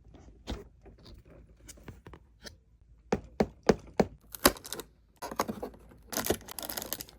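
Hands handling and opening an advent calendar's packaging: scattered light taps and clicks, a run of sharper knocks about three to four and a half seconds in, then crackling tearing of the box and wrapping near the end.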